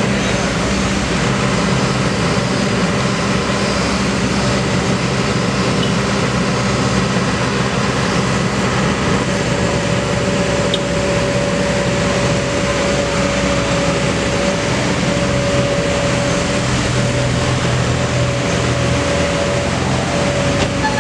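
Kobelco SK200 excavator's diesel engine running steadily under working load, with a steady whine joining about halfway through.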